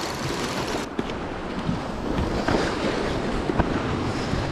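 Sea surf washing steadily, with a couple of faint clicks.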